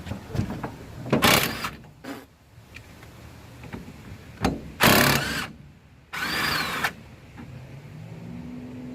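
Power wrench running bolts out of the engine's timing cover in three short bursts, about a second in, about five seconds in and again just after, the last with a motor whine that rises and falls.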